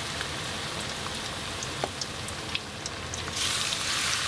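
Flour-coated salmon pieces sizzling and crackling in hot oil in a frying pan, growing louder about three seconds in.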